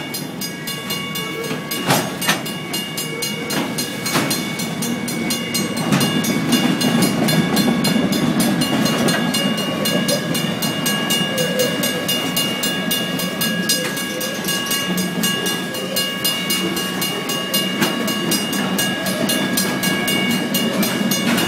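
Container freight train rolling past at a level crossing, its wagons rumbling steadily with a few sharp wheel clicks in the first few seconds. The crossing's warning bell rings rapidly and evenly throughout.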